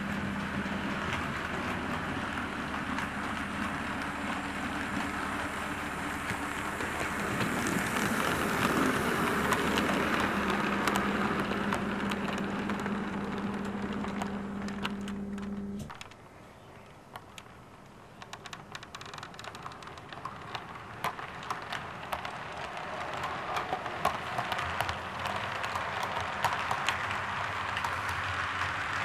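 Model railway train running: a steady electric hum and whirr of locomotive motor and wheels on track, growing louder as a rake of coaches passes close by. About halfway the hum cuts off abruptly, leaving irregular clicking of wheels over rail joints and points.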